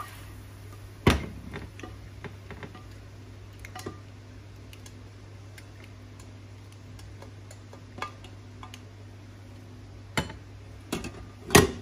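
Stainless-steel Instant Pot inner pot and utensil knocking and clinking: a sharp knock about a second in, scattered light ticks, then a few louder knocks near the end as the pot is set back down into the cooker's housing. A low steady hum lies under it all.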